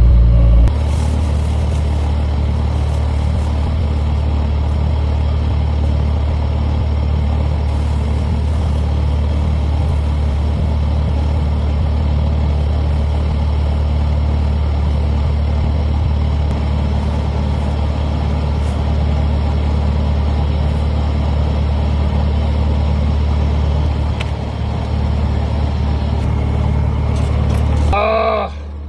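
Skid steer loader engine running steadily. Near the end the engine sound drops away and a brief rising-and-falling tone is heard.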